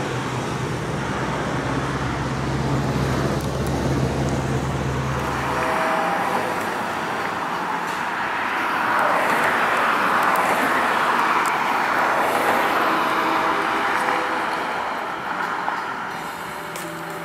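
Road traffic on a city street, with cars driving past and the tyre noise swelling to its loudest about nine to twelve seconds in. A steady low hum underneath stops abruptly about six seconds in.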